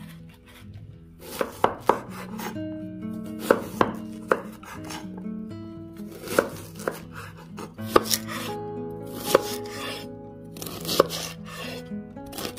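Chef's knife chopping white cabbage on a wooden cutting board: irregular sharp knocks of the blade through the leaves onto the wood, often two or three close together. Music plays underneath.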